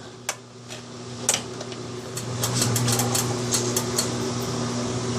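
GE belt-drive top-load washer running without spinning: a steady buzzing hum that grows louder over the first couple of seconds, with scattered clicks and ticks.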